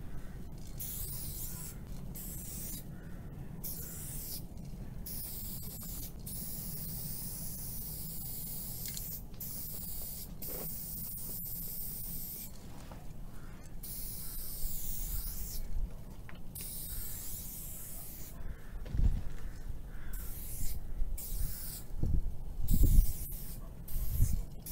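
Aerosol spray-paint can hissing in repeated bursts, some short and some several seconds long, each starting and stopping sharply, over a steady low hum. A few low thumps come near the end.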